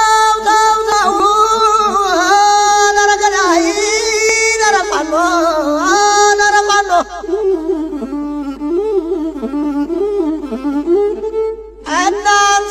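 Music for an Amharic shillela, an Ethiopian warrior's boasting song: a slow melody that slides in pitch, carried by a bowed fiddle with singing.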